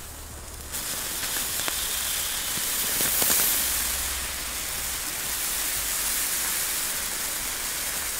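Two Komet Mini-Power Vesuv Class 1 fountains burning together: a steady spark hiss that starts about a second in, with a few small crackles.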